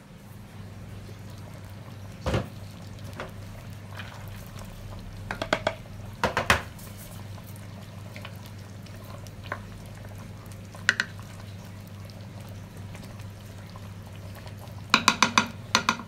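Sauce simmering in a steel pot under a steady low hum, with sharp clinks and knocks from the glass lid and a wooden spoon against the pot. The knocks come in quick clusters about a third of the way in and again near the end.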